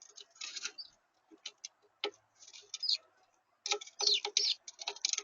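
Small birds giving short chirps that slide down in pitch, mixed with quick clicks and taps, typical of birds feeding at a bird feeder.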